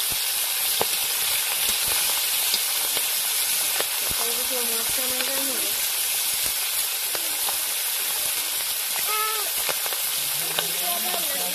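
Pangas fish steaks frying in hot oil in an iron kadai: a steady sizzle with occasional small pops.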